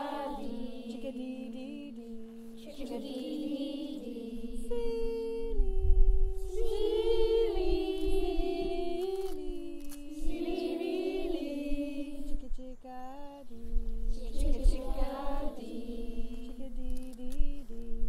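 A woman singing a slow call-and-response song, holding long notes that move in slow steps.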